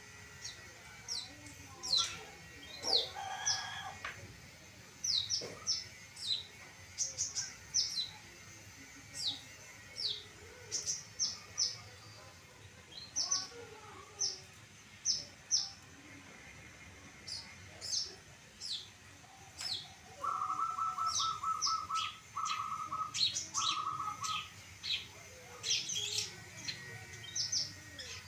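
Long-tailed shrike (cendet) singing in full voice: a rapid, irregular series of sharp, high notes that fall in pitch, with a lower, buzzy rattling trill in three bursts about two-thirds of the way through.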